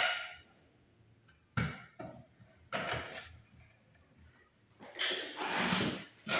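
A few separate clicks and knocks of a screwdriver and hand tools working the screws of a plastic wall-light base, then a longer stretch of rustling and scuffing about five seconds in as a person shifts and gets up off a wooden floor.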